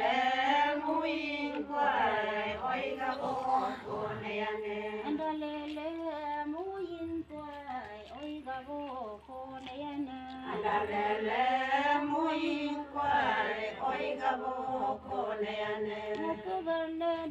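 A group of Adi women chanting a ponung folk-dance song together. The group singing swells twice, at the start and again about ten seconds in, with thinner, quieter singing between.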